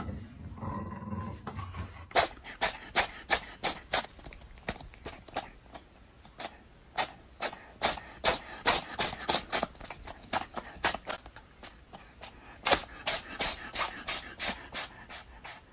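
A long run of sharp, wet clicks, two or three a second and unevenly spaced, from a cat on a person's head working at her hair with its mouth. The clicks begin about two seconds in and stop shortly before the end.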